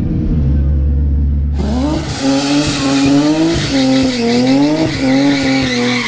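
Nissan 350Z's V6 with a steady low hum from inside the cabin, then, about a second and a half in, a burnout: the engine held at high revs, wavering up and down, over a loud hiss of spinning rear tyres.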